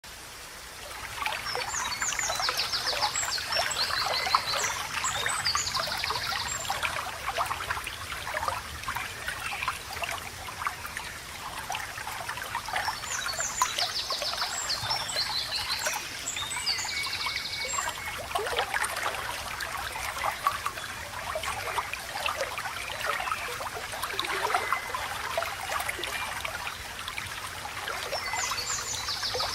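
Babbling, trickling stream water, fading in over the first second. Above it a songbird sings a high, rapid trilling phrase three times, roughly every twelve seconds.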